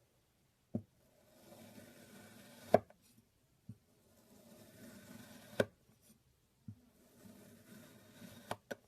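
A knife cutting through kinetic sand: three slow slices about three seconds apart, each a soft grainy scrape that ends in a sharp knock as the blade meets the surface beneath, with two quick knocks near the end.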